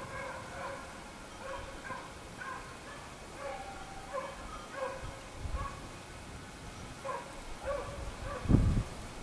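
Pack of scent hounds baying in the distance, a steady run of short repeated cries as they work a wild boar's scent. A loud low thump on the microphone comes near the end.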